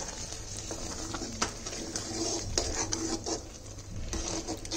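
Metal ladle stirring boiled dried white peas in a thin tomato-onion masala in a large metal pot. Irregular scrapes and clinks come from the ladle against the pot's sides and bottom.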